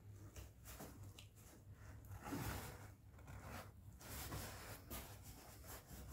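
Faint, irregular rustling and scraping of cardboard as a stiffening strip is pressed and smoothed by hand onto a duct-taped cardboard antenna dish.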